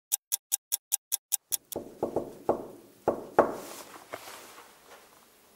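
A quick, even ticking, about five a second, stops about a second and a half in. Then come knocks on a hotel room door: a few quick raps in two groups, the loudest about three and a half seconds in.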